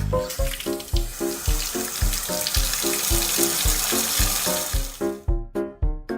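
A steady hiss over background music with a steady beat; the hiss stops about five seconds in and the music carries on.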